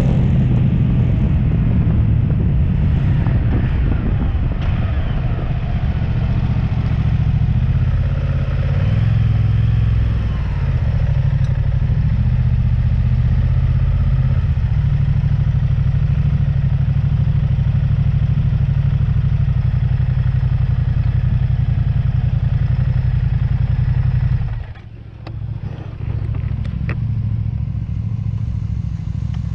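Moto Guzzi V100 V-twin motorcycle engine slowing from road speed to a stop, then idling steadily. Near the end the sound drops away sharply for about a second before the idle returns.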